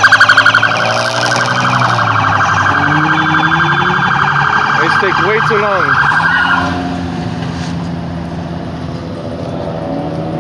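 Police car siren sounding a fast warble, cutting off about six and a half seconds in, with car engines running underneath.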